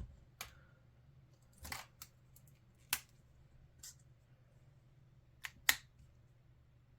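Alcohol markers being handled while colours are tested: about seven short, sharp clicks spaced irregularly, such as caps pulled off and snapped back on. The loudest click comes near the end.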